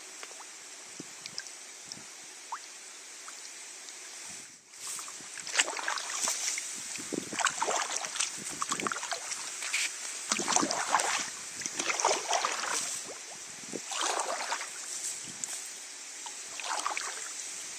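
Kayak paddle strokes dipping and splashing in river water, coming every second or two, starting about five seconds in after a quieter stretch.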